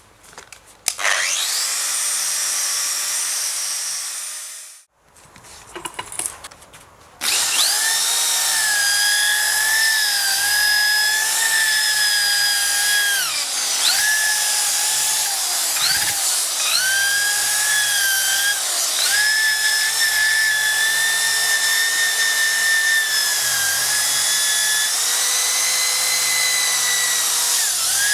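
A handheld electric power tool spins up with a high whine and runs down again after a few seconds. After a few light clicks it starts again and runs steadily for the rest, its pitch dipping briefly several times as it slows under load.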